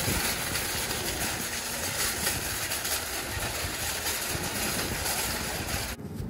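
Wire shopping cart rolling across asphalt, its wheels and basket making a steady rattling clatter that stops abruptly near the end.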